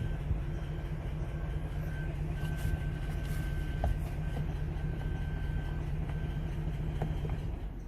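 2021 GM full-size SUV engine running steadily with a low, even hum. The vehicle carries a P0300 random-misfire code and a reported ticking noise. The sound changes abruptly near the end.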